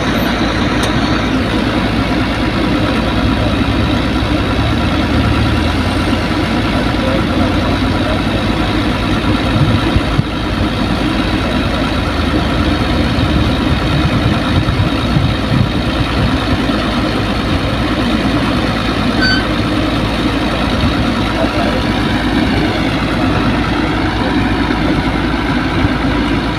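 Heavy diesel engine running steadily at an even, unchanging pitch.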